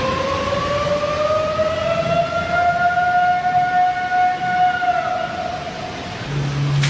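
Outdoor warning siren wailing: its pitch rises slowly over about three seconds, holds, then falls away about five seconds in. It sounds over a steady low rumble.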